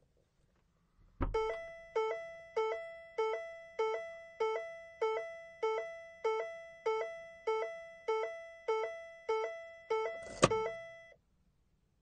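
A car's open-door warning chime: a two-tone electronic ding repeating about every 0.6 seconds, about sixteen times. A thud comes just before the chiming starts, and a sharp knock, the loudest sound, comes near the end, shortly before the chiming stops.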